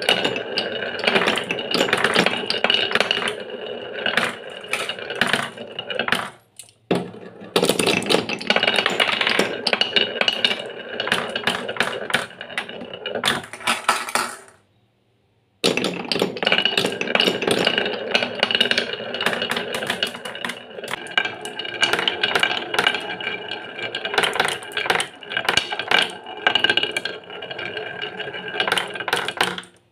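Glass marbles rolling down a wooden wave-groove slope: a continuous rolling rumble full of rapid clicks and clacks as they swing through the curves and knock into each other and into the wooden catch tray. The rolling stops briefly twice and then starts again.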